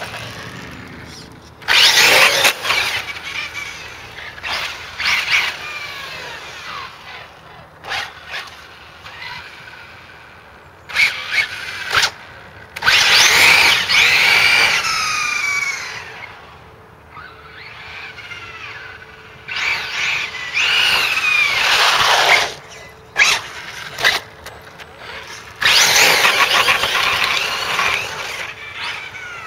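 Losi 8ight-T RC truggy's brushless electric motor, on a 6S battery, whining in repeated bursts of hard acceleration. The pitch sweeps up and down with the throttle, and there are quieter gaps between runs.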